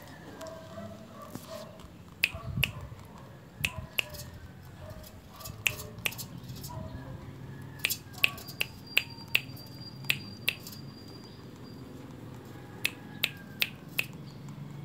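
Finger snaps in quick runs of two to four, over and over, to catch the West Highland White Terrier puppies' attention, with faint puppy whining underneath.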